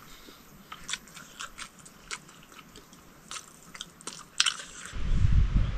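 Someone chewing food close to the microphone, a string of short sharp crunches. About five seconds in, a loud low rumble abruptly takes over.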